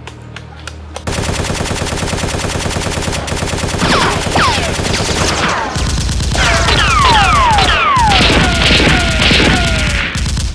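Automatic-gunfire sound effects: rapid, continuous shots starting about a second in. From about four seconds on, short falling whistles cut through the shots.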